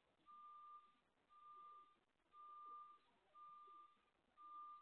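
A truck's reversing alarm: a single-pitch beep repeating about once a second, each beep lasting most of a second, five beeps in all, faint and at a distance.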